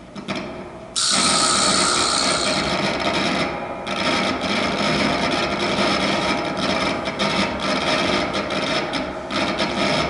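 Loud, dense wash of noise from a live guitar, saxophone and drums trio playing free improvisation. The sound starts abruptly about a second in and carries no clear pitched notes.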